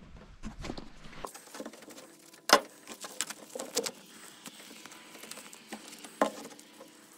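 Close handling noise: rustling and scattered light taps, with two sharp knocks, one about two and a half seconds in and one just after six seconds.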